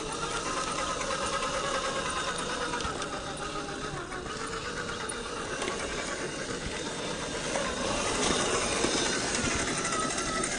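Scale RC crawler's 550 21T brushed electric motor and gear train whining under throttle. The pitch rises late on, then falls again as the throttle changes.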